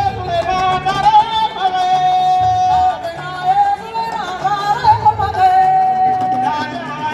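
Music: a high voice sings long held notes that bend in pitch, over a low, repeating beat.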